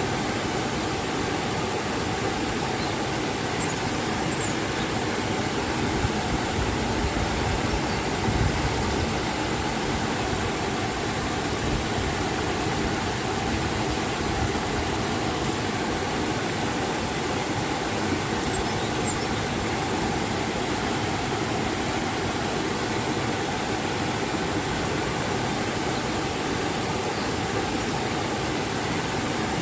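River water and a waterfall rushing in a steady, even roar of white noise.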